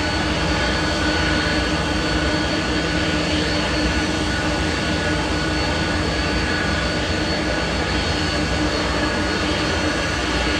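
Jet airliner engines running steadily, a constant rush of noise with several steady whining tones that hold their pitch.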